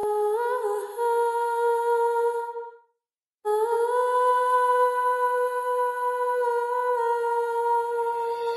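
Background music: a wordless hummed melody of long, steady held notes that shift pitch in small steps. The music cuts out completely for a moment about three seconds in.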